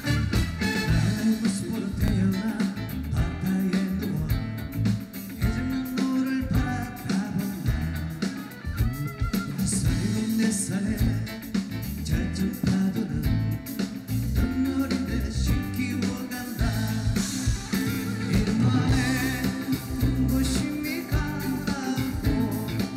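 Live band music with guitar.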